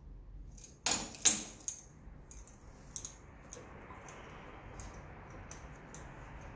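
Plastic wiring connectors on a motorcycle's fuel-injector harness clicking and rattling as they are handled: two sharp clacks about a second in, then a string of light clicks.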